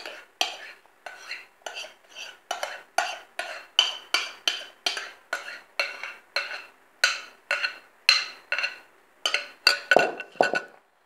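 A utensil stirring a thick, stiff cake mixture in a bowl, scraping and clinking against the bowl in a steady rhythm of about three strokes a second. Two heavier knocks come near the end.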